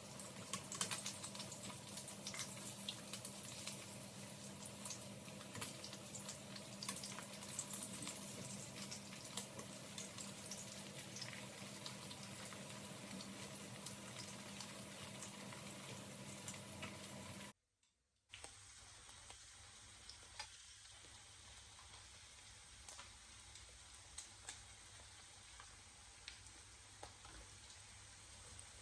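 Food frying in a pan: a steady sizzling hiss full of small crackles and pops. It breaks off abruptly about two-thirds of the way through, then goes on quieter with fewer pops.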